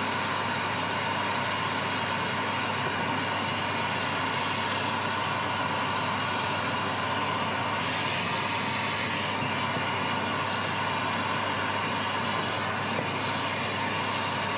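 Steady rushing noise of a fuel-rich gas-oxygen torch flame heating a crucible of silver and copper to melt it, together with the hum of a running exhaust fan.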